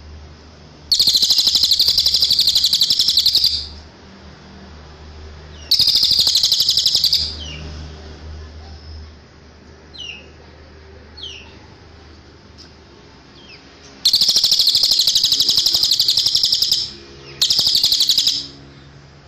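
Cililin singing: four loud, fast-pulsed high trills, each lasting one to three seconds, with a few faint short falling chips in the pauses between them. A faint low hum runs underneath.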